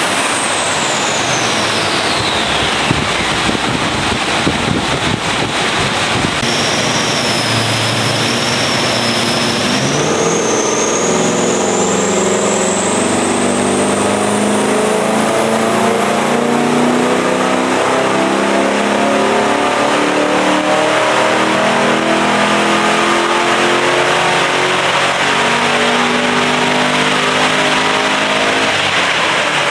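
Holden VY Commodore's 5.7-litre LS1 V8 with a mild aftermarket cam, running on a chassis dyno. A high whine falls away over the first few seconds. Then, from about ten seconds in, the engine pulls under load with a whine that climbs steadily in pitch to the end.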